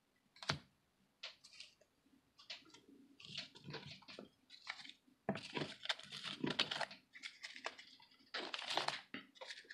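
Hands handling Yu-Gi-Oh trading cards: short irregular bursts of rustling and a few sharp clicks.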